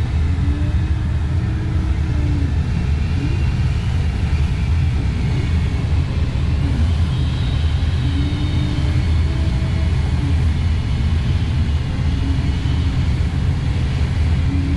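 Steady low rush of airflow around a glider in flight, heard inside the cockpit, with faint short tones coming and going over it.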